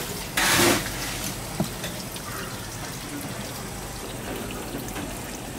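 Tap water running and splashing over a giant clam held under the faucet, with a short loud gush about half a second in.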